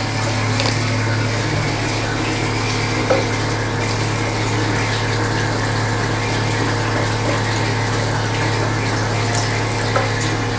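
Tap water running from a chrome cross-handle faucet into a ceramic washbasin as hands are rinsed under the stream, a steady hiss. A steady low hum runs underneath.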